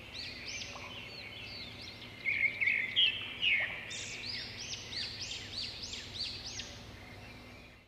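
Red-whiskered bulbul singing. A loud run of chattering notes comes about two to three and a half seconds in, followed by a string of quick rising-and-falling whistled notes, about three a second. The sound cuts off abruptly at the end.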